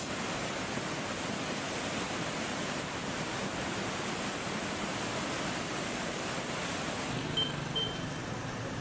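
Swollen, muddy floodwater rushing in a river in spate, a steady hiss of water noise. About seven seconds in it gives way to the low hum of idling lorry engines, with two short high beeps.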